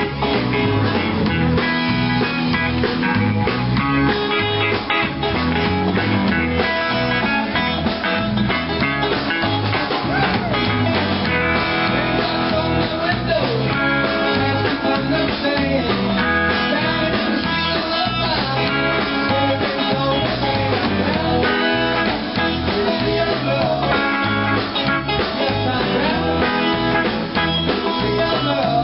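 Guitar-led blues-style music with bass notes on a steady beat.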